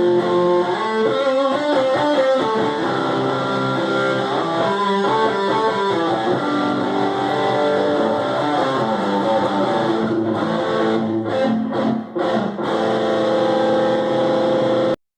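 Electric guitar playing a melodic line of sustained notes and chords, with a few short stops about ten to twelve seconds in, then cutting off abruptly near the end.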